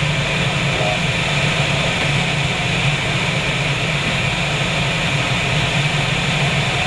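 Steady rushing airflow inside an unpowered sailplane's cockpit in gliding flight, with the small canopy window open to the slipstream.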